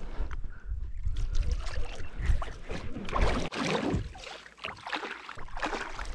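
Water splashing and sloshing around a small fishing kayak, uneven, loudest about three seconds in.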